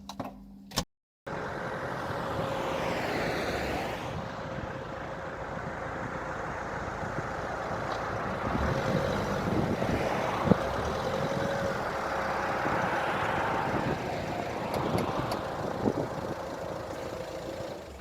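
Car driving: steady engine and road noise. It begins abruptly about a second in and cuts off abruptly near the end.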